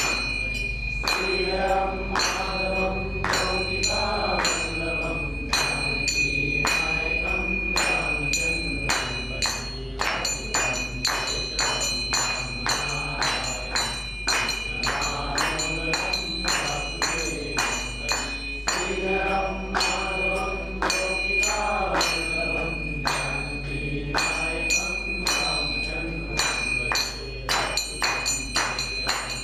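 A devotional song sung in phrases with pauses between them, accompanied by small metal hand cymbals (manjira) struck in a steady beat, their ringing carrying on between strokes.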